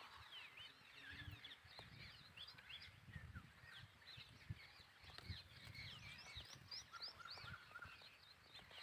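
Faint chorus of many small birds chirping: a busy stream of short, quick, high chirps sliding up and down, with soft low thumps now and then.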